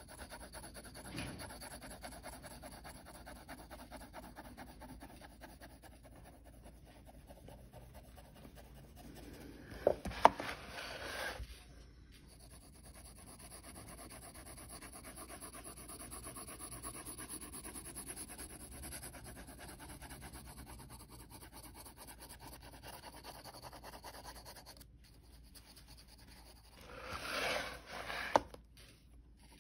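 Pencil shading on sketch paper: a steady soft scratching of the lead rubbing back and forth across the page. Twice, about ten seconds in and near the end, there is a brief cluster of louder knocks and paper rustle.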